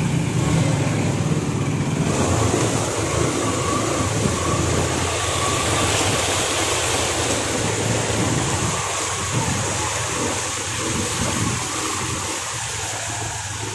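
Motorbike engine running steadily while riding through shallow floodwater, with a constant wash of water splashing and hissing around the wheels.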